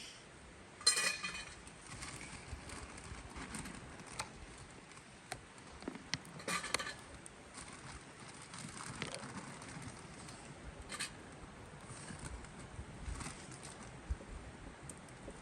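Camp gear being handled: scattered light clicks and knocks, with two short ringing clinks, about a second in and again around the middle.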